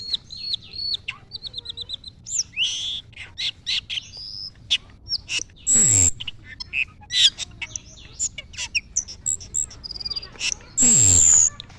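Cucak keling singing energetically: a fast, varied string of whistles, trills and chirps, broken twice, about 6 and 11 seconds in, by a short loud harsh call.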